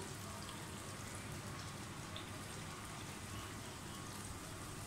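Sliced onions sizzling in hot cooking oil as they brown, a steady hiss with faint crackles.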